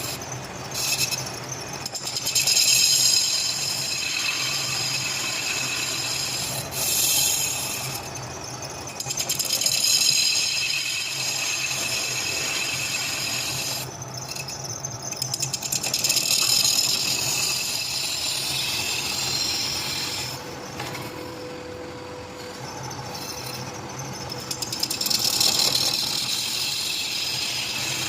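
Metal machining in a workshop: a harsh cutting and scraping noise with high ringing tones, over a steady machine hum. It swells louder several times, at about 3, 7, 10, 16 and 25 seconds in.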